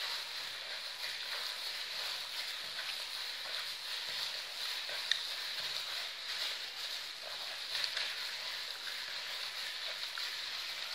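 Steady hiss with a soft rustle and squish of a plastic-gloved hand kneading banana, coconut and flour dough in a plastic bowl. There is a small click about five seconds in and another near eight seconds.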